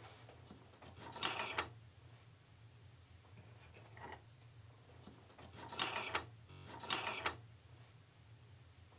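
Seashells scraping and clinking against each other as a hand picks through a pile of them, in a few short bursts, over a faint steady hum.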